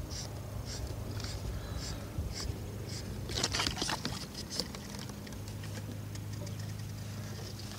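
Fly line being stripped in by hand in short, regular pulls, a soft swish about twice a second. A little over three seconds in comes a brief flurry of rapid clicks, then fainter, more irregular line handling.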